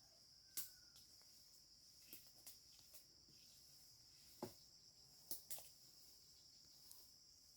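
Faint, steady insect chorus: a high, even buzz that does not change, with a few soft clicks and snaps scattered through it.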